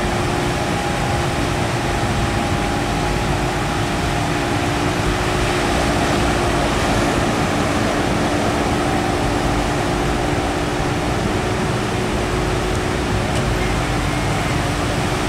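Steady rush of surf breaking and washing up the beach, with wind buffeting the microphone and a faint steady hum underneath.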